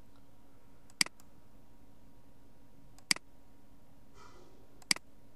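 Three sharp computer mouse clicks about two seconds apart, each with a faint second tick as the button comes back up, over a low steady hum.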